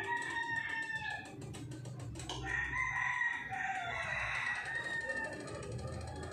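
Roosters crowing, one long drawn-out call after another, with chickens clucking.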